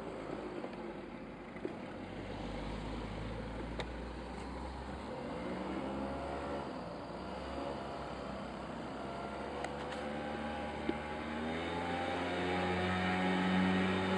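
Piaggio Zip scooter's small engine running while being ridden, its pitch rising and falling with the throttle, climbing and getting louder near the end. A few short sharp clicks.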